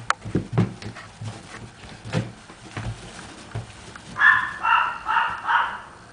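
Pomeranian puppy giving four quick high-pitched yips in a row, about four seconds in, after a few soft thumps and rustles.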